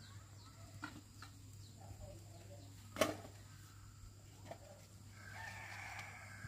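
A rooster crowing once, faintly, near the end, with small bird chirps earlier and one sharp click about three seconds in.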